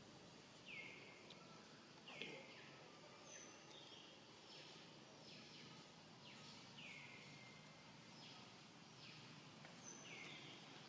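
Faint, repeated short calls that slide down in pitch, about one a second, typical of a bird calling over quiet outdoor background noise.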